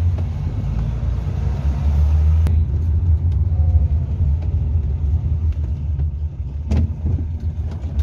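Hillman Super Minx's four-cylinder engine running at low speed with a steady low rumble of engine and road noise, heard from inside the cabin. A sharp click about two and a half seconds in and a knock a little before the end.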